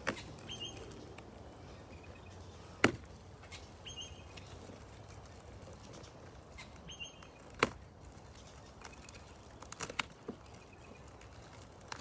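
A few sharp clicks or snaps several seconds apart, with a short high chirp, like a bird call, repeating about every three seconds behind them.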